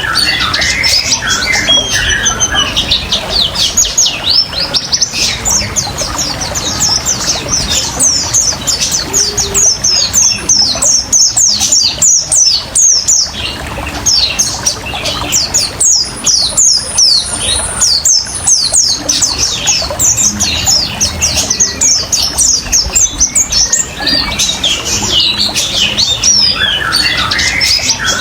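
White-eye (pleci) singing a fast, unbroken twittering song of rapid high chirps, the 'ngriwik' song style. Beneath it runs a steady trickle of water.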